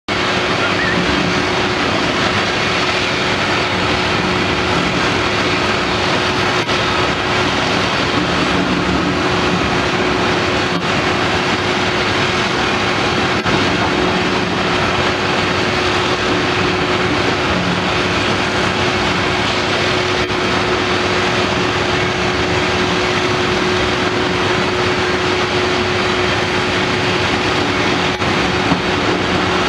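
Cat 345D L hydraulic excavator's diesel engine running steadily under working load while it digs, with a constant steady tone over the engine noise and a few faint knocks.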